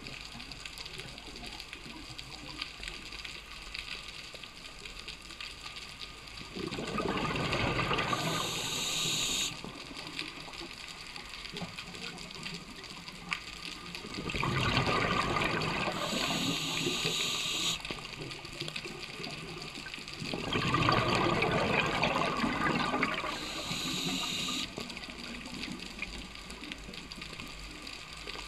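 Scuba diver's regulator underwater: three long bubbling exhalations several seconds apart, with quieter stretches between them.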